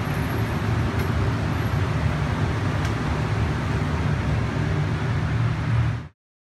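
Steady low rumbling background noise of an indoor shooting range, with a couple of faint knocks, cutting off suddenly about six seconds in.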